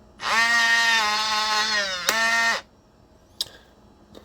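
Kwikset Aura electronic deadbolt's motor throwing the bolt to lock: a very, very loud whine lasting about two and a half seconds. Its pitch sags slightly, a sharp click comes about two seconds in, and then it stops. This is the model's normally loud motor on a smooth lock, not a fault. Two faint clicks follow.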